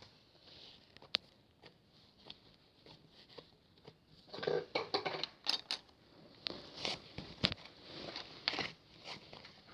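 Small clicks, taps and rustles of objects being handled close by: sparse at first, busier from about four seconds in.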